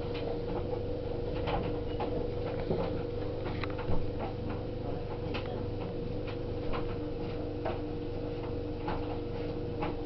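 Bosch Classixx vented tumble dryer running: a steady motor hum with a low rumble from the turning drum, and irregular clicks and knocks from the load tumbling, one louder knock about four seconds in.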